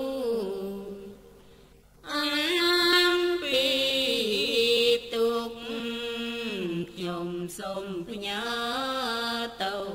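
A single voice chanting a Thai Buddhist chant in long held, melodic notes that step up and down. The chant fades out briefly about a second in and resumes at about two seconds.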